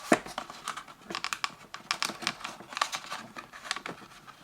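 Crinkling and crackling of a toy's cardboard window box and its card being handled to get the action figure out, a dense run of small clicks and rustles.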